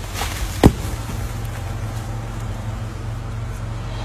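Boom truck engine running steadily, with one sharp, loud thump about two-thirds of a second in.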